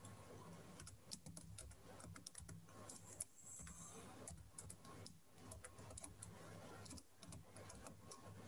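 Faint, irregular keystrokes of a computer keyboard being typed on.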